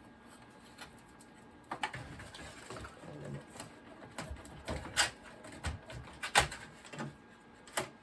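Irregular clicks and knocks of computer parts being handled during disassembly, starting after a short quiet spell, the sharpest about five and six and a half seconds in.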